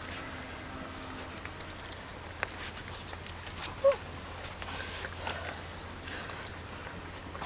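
Several dogs eating from a banana leaf: faint chewing, smacking and leaf rustling, with one short pitched squeak about four seconds in.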